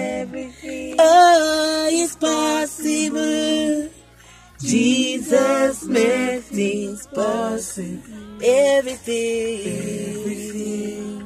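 A woman singing a gospel chorus, mostly unaccompanied, in sung phrases with held notes and a short pause for breath partway through.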